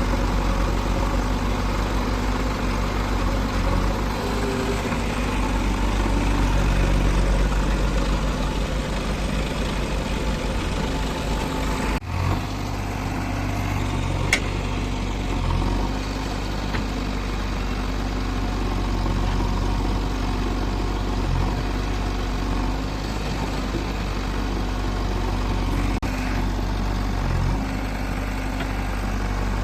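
Diesel engines of a backhoe loader and tractors running steadily. The sound changes abruptly about twelve seconds in, and a single sharp click comes a couple of seconds later.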